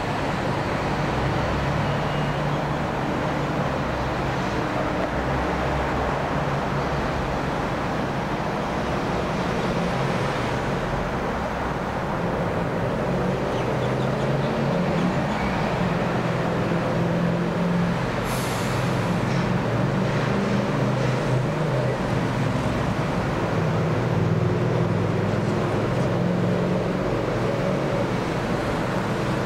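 Steady rumble of engines, like traffic, with a brief high hiss about 18 seconds in.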